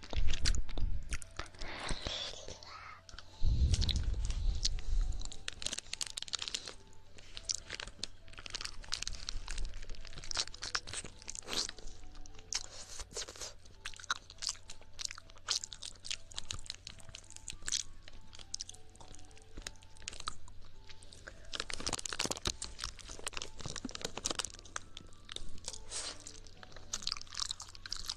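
Close-miked wet mouth sounds of ASMR ear licking: dense, irregular clicks and smacks, with a couple of low thuds in the first five seconds. Soft background music of faint held notes runs underneath.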